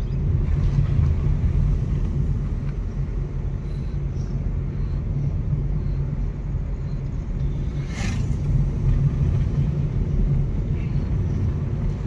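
Car driving on a narrow paved road, heard from inside the cabin: a steady low rumble of engine and tyre noise. A single brief sharp click comes about eight seconds in.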